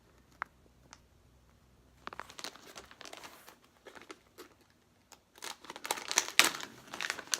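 Plastic packaging crinkling and rustling as it is handled and opened. A couple of faint clicks come first, then irregular crackling from about two seconds in, loudest near the end.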